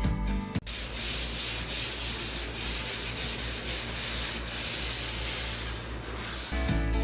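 Sanding of the dried joint compound on freshly skim-coated drywall: a steady, scratchy rubbing that swells and dips. Background music cuts off about half a second in and comes back near the end.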